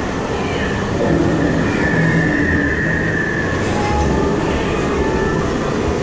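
Kiddie amusement-ride train running along its track: a steady rumble of wheels with a held high tone over it.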